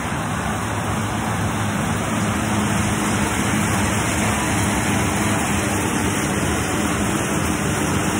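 Assault air bike's fan wheel spinning fast under a hard effort: a steady rushing whoosh of air with a low hum underneath, growing a little louder after a couple of seconds.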